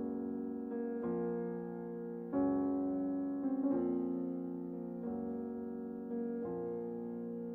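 Slow background music of held piano chords, a new chord struck about every second or so.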